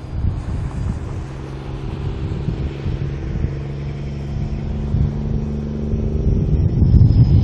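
American semi-truck diesel engine running as the truck drives past, a low drone that grows louder towards the end.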